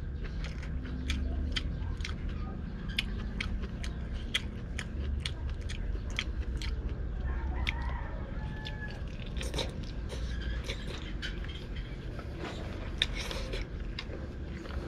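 A person chewing a mouthful of squid and rice, with a steady run of wet mouth smacks and clicks about two a second, over a low background rumble.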